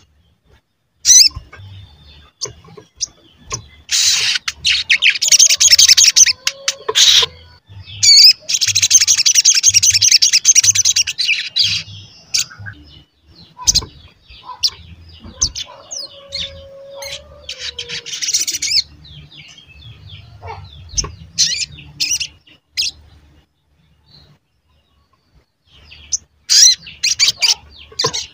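Male olive-backed sunbird (sogon) calling: sharp, high chirps and fast twittering trills, with two long runs of rapid trilling a few seconds in and a quieter gap shortly before the end.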